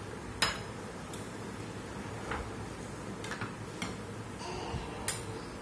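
Serving spoons and ceramic dishes clinking as food is served onto a plate of rice: five or so separate sharp clinks, the loudest about half a second in, over a steady background hiss.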